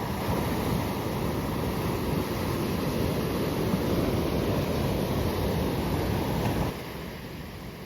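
Ocean surf and wind buffeting the microphone, a dense rushing noise heaviest in the low end. About three-quarters of the way through it drops suddenly to a quieter wash.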